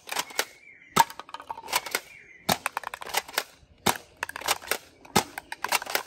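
Toy foam-dart blaster firing again and again, a sharp snap with each shot, some in quick clusters, mixed with the clatter of darts striking plastic toy walkie-talkies and knocking them over onto concrete.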